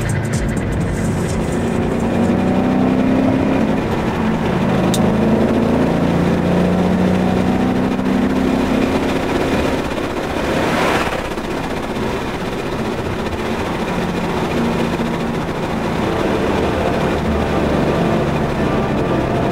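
Ford Mustang GT's 5.0-litre V8 engine heard from inside the cabin while driving, its pitch rising several times as the car accelerates. About halfway through, a rushing noise swells and fades as another car is passed close alongside.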